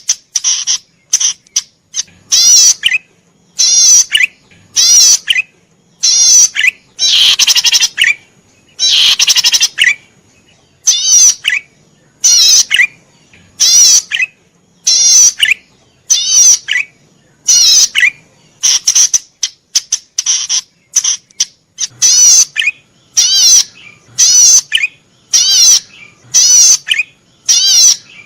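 Cisticola ('cici padi merah') singing in full voice. Short, buzzy, fast-trilled notes repeat about once a second, with a couple of longer, fuller phrases about a quarter and a third of the way in.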